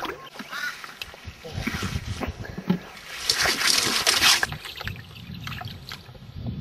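A large hooked fish thrashing and splashing at the water's surface beside a canoe, with a loud burst of splashing about three seconds in as it is hauled up, and low knocks and bumps of handling throughout.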